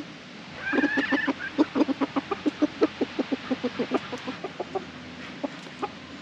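A rooster clucking: a short, higher-pitched call about a second in, then a fast run of clucks, several a second, that thins out about five seconds in.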